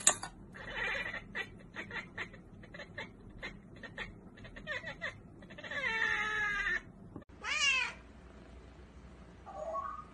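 A cat chattering at the window: a run of quick stuttering chirps and clicks, then a long meow falling in pitch about six seconds in. After a sudden break, a brief quavering cat call and a faint short call follow near the end.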